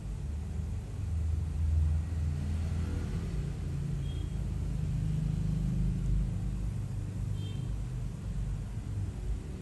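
Low, steady background rumble.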